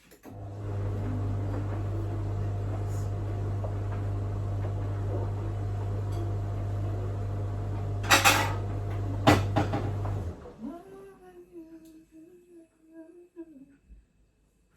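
Steady electric hum of a household appliance motor, running for about ten seconds and then cutting off suddenly, with two sharp clicks shortly before it stops. After it stops, a person hums a tune.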